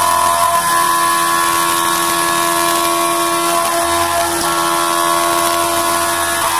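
CNC vertical machining centre's spindle and end mill cutting aluminium: a steady machining whine with several pitches held together over a hiss.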